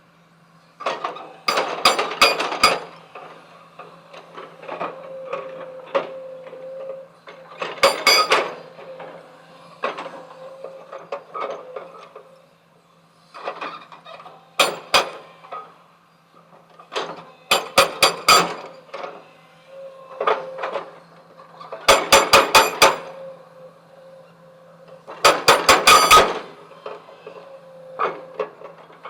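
Heavy machinery working stone: bursts of rapid, sharp metallic strikes every three to four seconds, each burst a quick run of hits about a second long, with lighter clatter between them over a steady low machine hum.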